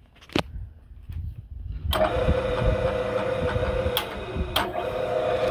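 Bridgeport variable-speed J-head milling machine starting up about two seconds in, then running steadily with a whine. A sharp click comes a couple of seconds later, the pitch dips briefly, and a second click follows. It is a quiet-running head.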